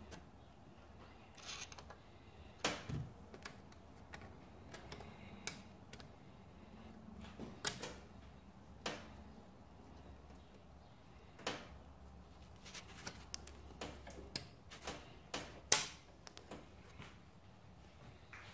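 Scattered, irregular clicks and taps from the servo cover and its wire retaining ring being worked into a 4L60E transmission case, with one sharper click about three-quarters of the way through.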